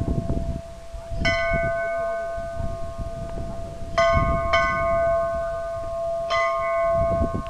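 Hanging metal temple bell struck four times: about a second in, twice close together around four seconds, and once more past six seconds, each strike ringing on with a steady tone that carries into the next.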